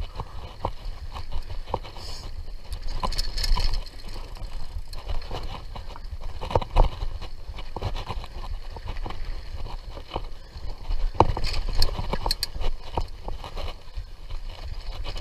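Mountain bike riding over a dirt trail: a steady low rumble from the tyres, with many irregular clicks, knocks and rattles as the bike goes over bumps.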